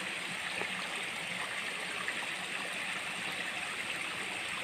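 Warm hot-spring water flowing steadily through a shallow concrete channel, a constant trickling rush.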